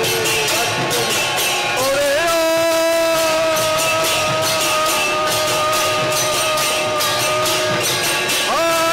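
Conch shell (shankha) blown in one long held note of about six seconds that slides up in pitch as it starts, with a second blast sliding up near the end. Under it, khol drums and hand cymbals (kartal) keep a steady rhythm.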